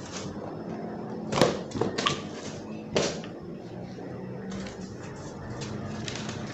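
Unboxing handling noise: a cardboard box lifted and set down on a tile floor, with a few sharp knocks, the loudest about a second and a half in. Softer paper and plastic rustling and clicks follow as packaging is handled.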